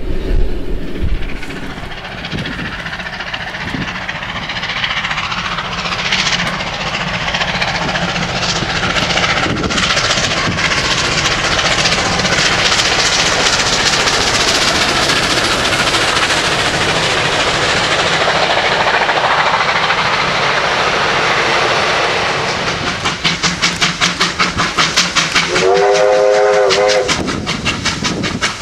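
Victorian Railways R-class 4-6-4 and K-class 2-8-0 steam locomotives working a train past at speed, a loud steady mix of exhaust and wheels on the rails. Near the end the exhaust comes as rapid, even beats, and a chord-like steam whistle sounds for about a second.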